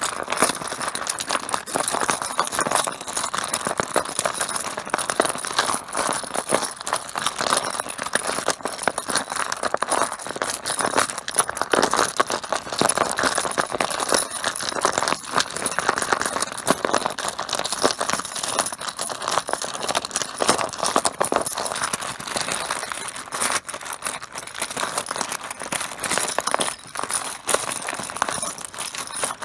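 Mahjong tiles clattering against one another in a dense, continuous run of clicks.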